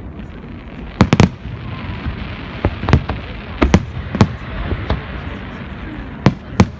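New Year fireworks display: irregular sharp bangs of exploding shells, a quick pair about a second in, over a steady rumble and crackle of the display and crowd.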